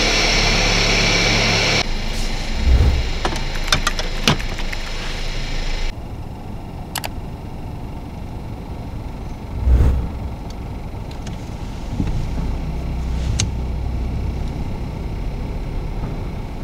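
Car engine idling with a low steady hum. A loud hiss cuts off about two seconds in, clicks come in a cluster soon after, and there is a thump about ten seconds in.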